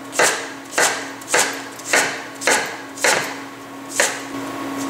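Chef's knife chopping purple cabbage on a wooden cutting board: seven sharp chops, a little under two a second, with a longer pause before the last one.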